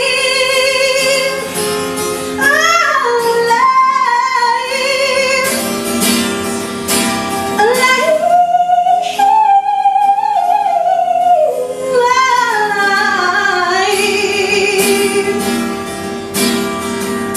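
Woman singing long, wavering held notes without words over a strummed acoustic guitar.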